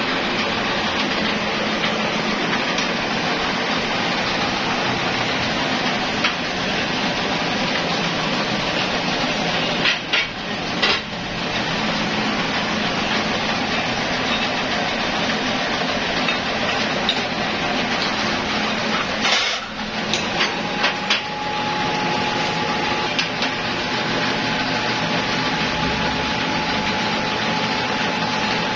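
Steady machine noise from a rubber injection molding machine running, with a few sharp metal clanks of its steel mold plates and pins being handled, about a third and about two-thirds of the way through. A steady whine joins in about two-thirds of the way through.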